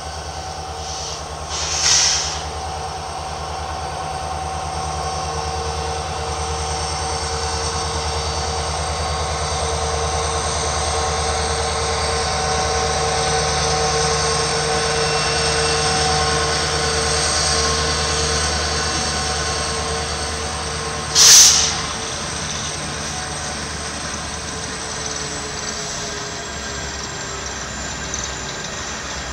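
Diesel-electric locomotives of a BNSF empty coal train, SD70MAC units in the lead, rumbling past with a steady hum that builds to a peak around the middle and then eases as the cars follow. Two brief loud hissing bursts stand out, one about two seconds in and one about three-quarters of the way through.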